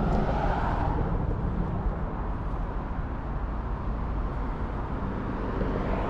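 Steady outdoor background noise of road traffic with a low rumble, a little louder in the first second.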